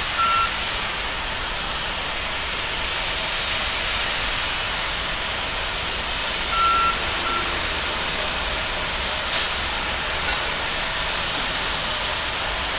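Steady hiss of ramp machinery around a parked airliner, broken by short beeps from ground equipment, once near the start and twice around the middle.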